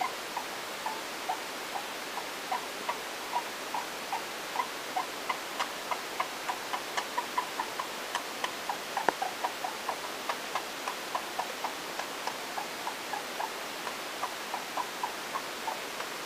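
Pet hamster making short, quick hiccup-like chirps, about two to three a second and closer together in the middle, with one sharper click about nine seconds in. The owner wonders whether these are hiccups or a sign of something else.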